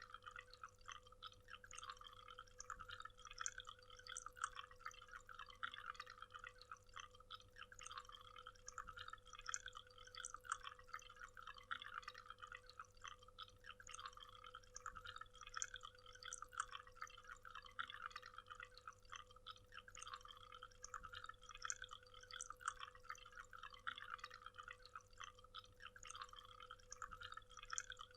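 Small waterfall: water splashing and dripping in a dense, steady patter, faint, with a steady low tone underneath.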